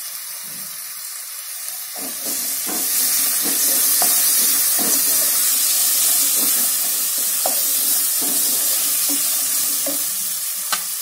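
Diced vegetables and peanuts sizzling in hot oil in a nonstick pot while a wooden spatula stirs them, with repeated scrapes and knocks against the pan. The sizzle grows louder about two seconds in.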